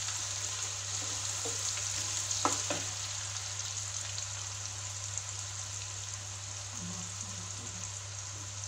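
Freshly chopped onions sizzling in hot oil in a non-stick pan, stirred with a wooden spatula. There are a couple of short spatula scrapes about two and a half seconds in, and the sizzle eases slightly as it goes on.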